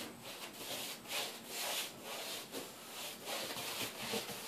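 An old paintbrush with a little paint on it scrubbing over a wrinkled tissue-paper wall texture in quick back-and-forth strokes, a dry bristle rasp about three times a second.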